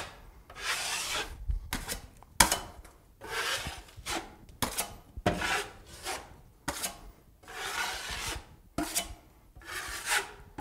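Joint knife spreading and scraping joint compound across drywall in repeated rough strokes, about one a second, while a second coat is put on over a patched hole. A few sharp clicks fall between the strokes.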